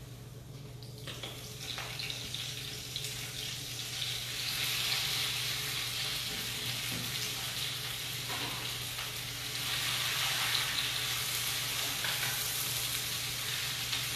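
Fresh spinach sautéing over high heat in a pan of sun-dried tomato oil, sizzling. The sizzle builds over the first few seconds and swells again about ten seconds in.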